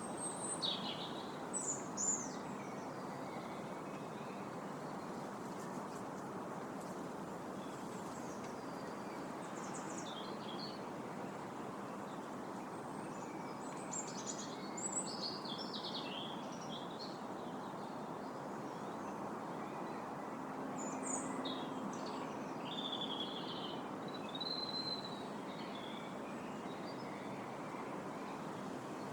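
Steady rushing of wind through trees, with several songbirds chirping and singing in short, scattered high phrases that cluster near the start, in the middle and again later.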